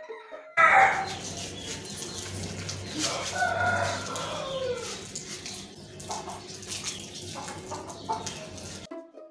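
A rooster crowing, one call falling in pitch about three seconds in, over the splash and hiss of water as a concrete floor is washed down.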